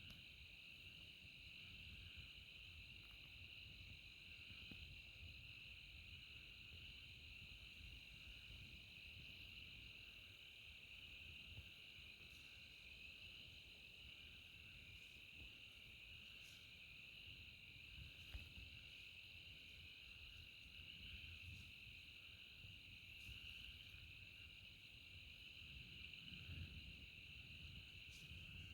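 Faint steady chorus of night insects, a continuous high-pitched trill, with a low rumble underneath.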